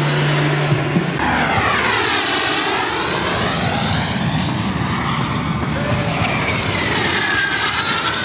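Jet aircraft flying low past, twice: the engine noise swells and sweeps down and back up in pitch as each goes by, the second pass about five seconds after the first. Steady background music tones stop about a second in.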